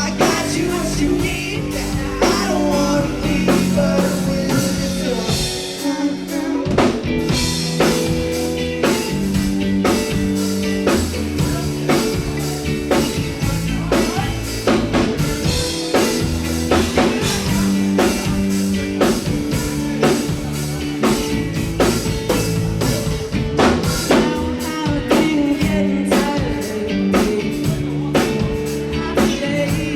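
Live band playing a song: drum kit, guitar and singing. The low end drops out for a short break about six seconds in, then the full band comes back.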